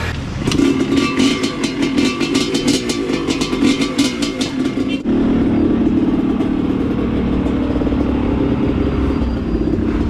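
Motorcycle engine running, with rapid clattering over it for the first half. About halfway through the sound changes suddenly to a steadier engine hum.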